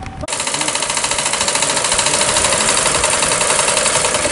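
Treadle sewing machine running with a fast, steady mechanical clatter, starting about a quarter second in.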